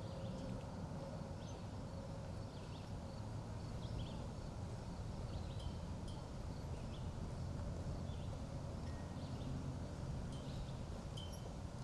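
Outdoor ambience: a steady low rumble with small birds chirping in short, high notes every second or so.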